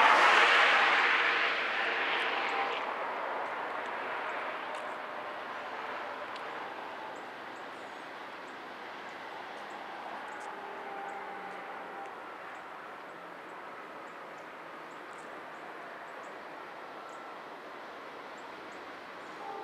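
Loud rushing drone of an aircraft passing close, loudest at the start and fading away over several seconds into a faint steady background.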